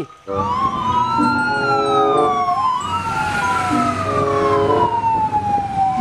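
Fire engine siren wailing in slow rising and falling sweeps, with a second siren overlapping it and a low rumble underneath.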